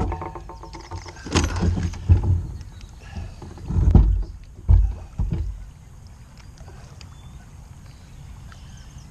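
Knocks, thumps and rattles of handling on a plastic fishing kayak: five or so irregular knocks in the first six seconds, then only a faint steady background.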